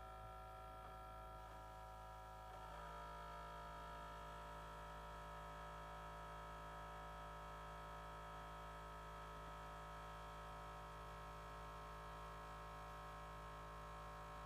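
Faint, steady electrical hum with several high whining tones layered over it: the weird noise a piece of equipment is making. The pattern of tones shifts slightly about three seconds in, then holds steady.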